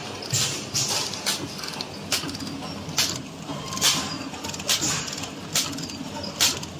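Breadstick flow-wrapping (pillow-pack) machine with autoloading infeed running: a steady mechanical hum with a sharp clack repeating a little under once a second, in step with its packing cycle.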